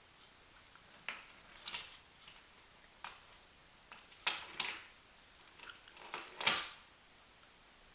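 Kittens playing with a toy indoors: a handful of short, scattered rustles and light taps, irregularly spaced, with the loudest ones a little past four seconds and about six and a half seconds in.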